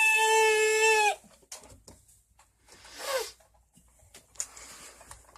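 A person's drawn-out, high-pitched yell held at one steady pitch, cut off abruptly about a second in. Around three seconds in comes a shorter, quieter vocal cry that falls in pitch.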